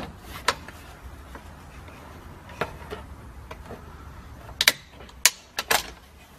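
Sharp plastic and metal clicks and taps as a hood release cable is worked free of its handle under the dashboard of a 1989–95 Toyota. A few single clicks are spread through the first few seconds, and a quick cluster of them comes near the end.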